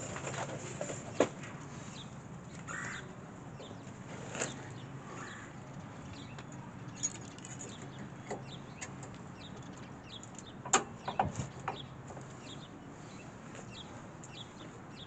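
Light clicks and knocks of brake pads and hand tools being handled: a sharp click about a second in and a quick cluster of clicks near the eleven-second mark, over a low background with short, faint high chirps.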